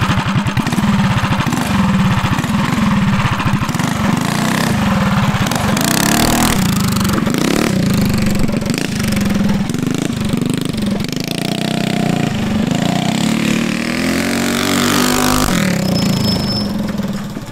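Tillotson 212 single-cylinder four-stroke engine, with a Fire 265 cam and racing muffler, in a Coleman CT200U-EX mini bike, running loud and being revved up and down repeatedly.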